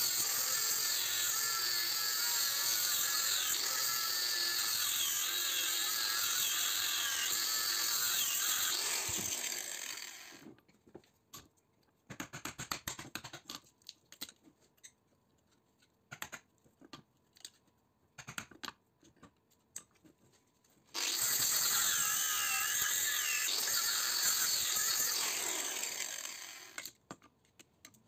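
Angle grinder with a cutting disc cutting into a small transformer's steel core for about ten seconds, its pitch wavering as the disc bites. Then comes a stretch of scattered clicks and scrapes as a screwdriver pries at the copper winding. The grinder cuts again for about six seconds near the end.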